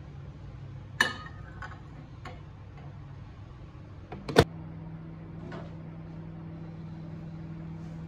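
A plate clinks down onto the glass turntable of a EuropAce microwave oven about a second in; a few seconds later the door latches shut with a loud click, the loudest sound, and the oven starts running with a steady hum.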